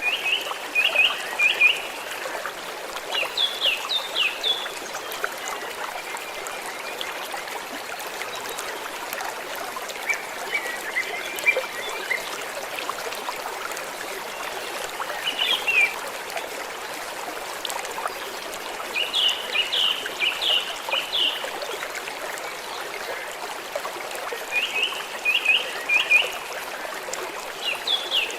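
A small stream trickling and flowing steadily, with a bird calling over it in short bursts of quick, high chirps every few seconds.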